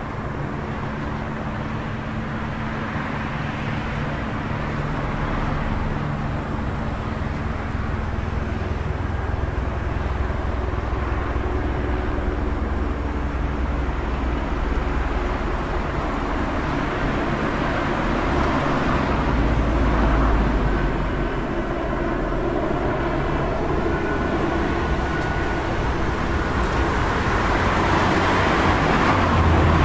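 City street traffic: a steady wash of car noise with a low engine hum, swelling as vehicles pass about two-thirds of the way through and again near the end.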